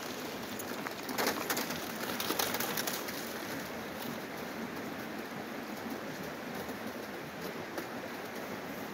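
Dogs' paws crackling and crunching on a thin sheet of ice and wet gravel, busiest in the first three seconds, over a steady hiss.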